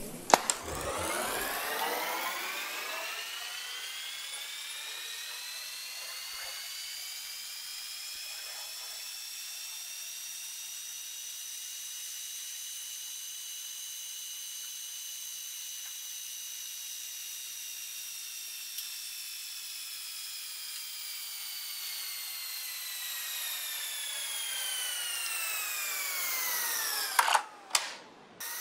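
Cassette deck fast-winding a 90-minute cassette, with a click as the transport engages. Its motor and reels whine, rising in pitch over the first several seconds, holding, then falling again as the tape runs toward its end. Loud mechanical clunks come near the end as the transport stops.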